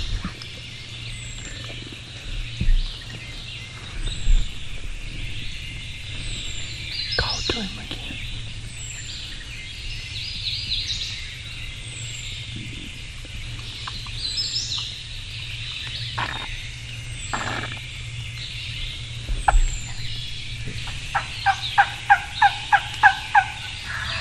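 A hunter's wingbone turkey call yelping a run of about nine evenly spaced notes near the end, over a steady chorus of woodland birds and insects, with a few soft knocks of movement earlier.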